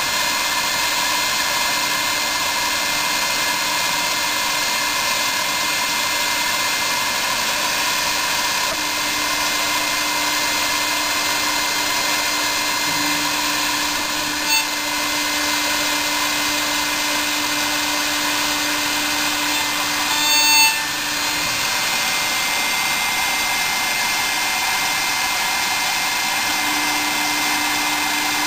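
CNC milling machine's spindle driving a small end mill through aluminium plate under flood coolant: a steady whine with cutting noise. A brief, louder screech about twenty seconds in.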